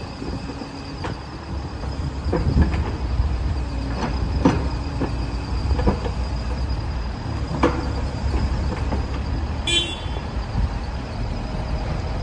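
CAT 306CR mini excavator's diesel engine running with a steady low rumble, with a series of sharp metallic knocks and clanks from the machine and a short high squeal near the end.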